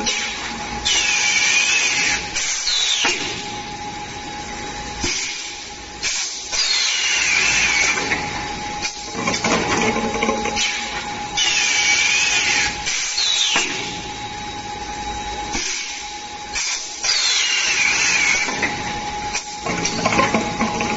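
A 4-cavity semi-automatic bottle blowing machine cycling about every five seconds: sharp pneumatic clicks, then a loud hiss of compressed air about two seconds long, carrying a wavering whistle that rises and falls. A steady hum runs underneath.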